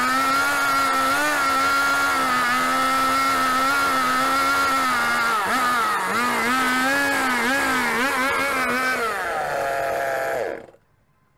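Gasoline two-stroke chainsaw running at full throttle as it carves a hollow into a wooden log, its pitch wavering as the chain bites. About nine seconds in, the throttle is released and the engine falls to idle, then the sound cuts off abruptly.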